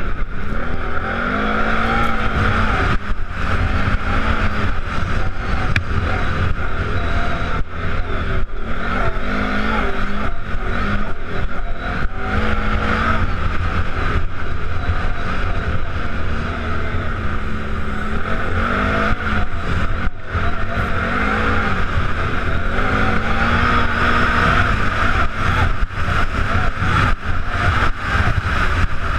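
ATV engine running under load, its pitch climbing and dropping again and again as the throttle opens and eases, over a steady rumble and wind and ride noise on the mounted camera.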